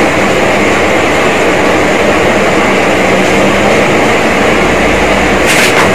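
Steady, loud rushing noise like a machine running. A brief crackle sounds near the end.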